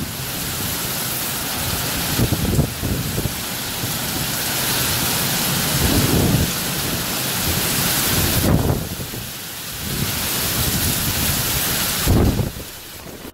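Heavy thunderstorm downpour, rain hissing steadily on leaves and ground, with short low rumbles about four times.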